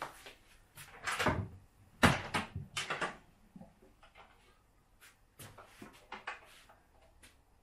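Hinged wooden doors of a wall-mounted plywood toolbox cabinet being swung open. There is a sharp knock about two seconds in, with a few lighter knocks and bumps around it.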